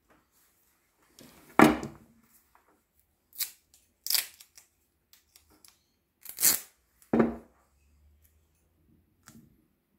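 Cloth tape being pulled off the roll and torn by hand: about five short, sharp rips spread over several seconds, the loudest about a second and a half in.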